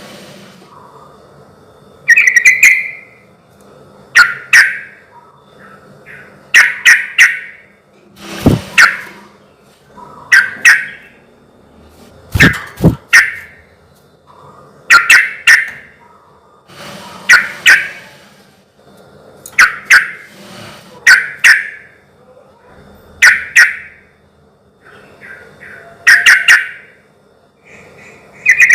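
Yellow-vented bulbul (trucukan) singing short, loud, chattering phrases, repeated about every two seconds; a recording used as a lure to make other bulbuls answer.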